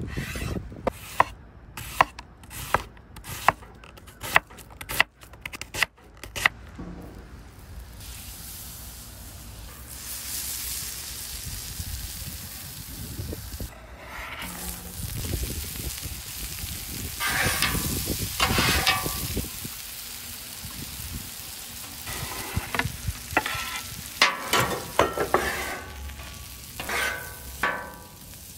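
A knife chopping through an onion on a cutting board, a quick run of sharp chops over the first six seconds or so. Then sliced onions sizzle on a hot flat-top griddle, with a metal spatula scraping and turning them in bursts.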